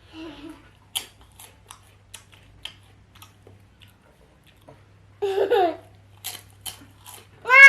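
Close chewing and small wet mouth clicks of someone eating potatoes. A young child's voice about five seconds in, then a loud, high, wavering child's vocalization near the end.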